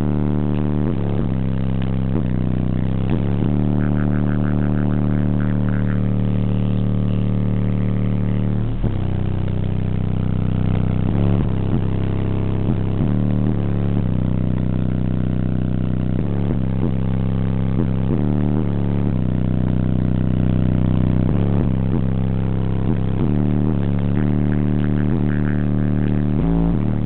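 Bass-heavy music played very loud through four old-school Rockford Fosgate 15-inch subwoofers in a car. Deep, steady bass notes change every second or so.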